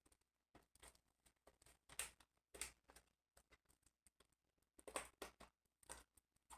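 Faint handling noise from a plastic Blu-ray case and its paper insert: a few short, scattered rustles and clicks.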